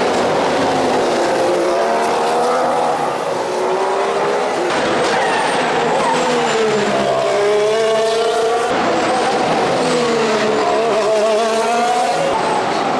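2014 Formula One car's 1.6-litre turbocharged V6 engine at racing speed. Its pitch falls and rises several times, with abrupt shifts about five and nine seconds in, as the car brakes and accelerates.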